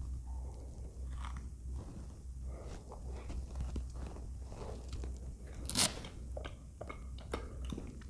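Close-up mouth sounds of a person eating cookies-and-cream ice cream with cookie pieces in it: soft chewing with many small crunches and clicks, and one sharper crunch about six seconds in. A low steady hum runs underneath.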